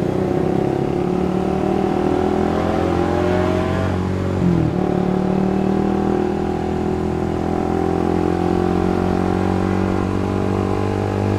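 Suzuki GSX-R150's single-cylinder engine pulling under acceleration, its pitch rising, dropping sharply at an upshift about four and a half seconds in, then climbing more gently as the bike gathers speed.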